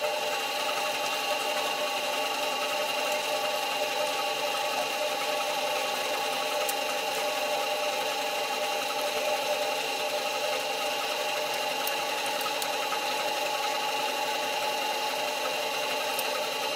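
Metal lathe running steadily, its motor and headstock gearing giving an even hum with several steady whining tones.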